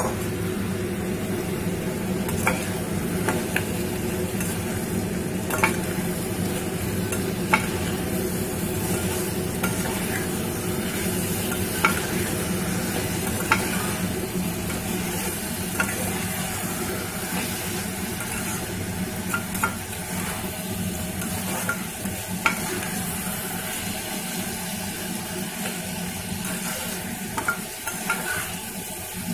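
Long metal spatula stirring and scraping soft-cooked vegetables and greens in a metal kadai, with the mix sizzling as it is fried down. A sharp clink of the spatula against the pan comes every couple of seconds.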